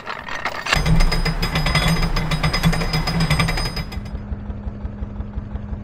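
Canal lock paddle gear being wound with a windlass, its ratchet clattering rapidly. About four seconds in, this gives way to a narrowboat's engine running steadily.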